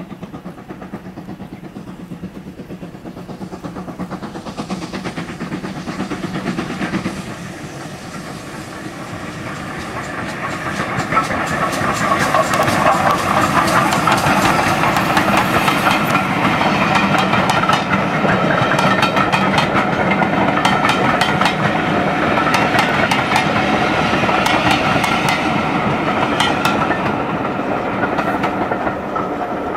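Steam-hauled train on the West Somerset Railway: a quieter approach at first, then a GWR steam locomotive and its train passing close, getting louder from about eight seconds in. As it passes there are rapid clicks of wheels over rail joints and steam hiss, easing off near the end.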